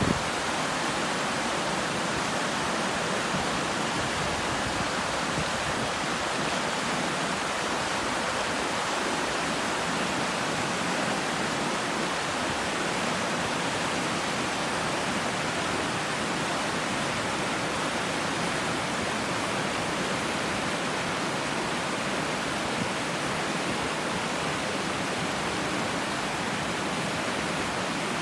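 River water rushing and running steadily, an even, unbroken rush of flowing water.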